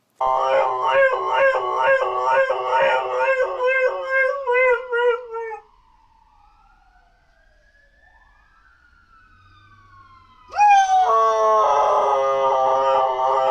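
Dog howling on command in long wavering notes. The howling breaks off about halfway, leaving only faint slow gliding tones, then starts again loudly about ten and a half seconds in.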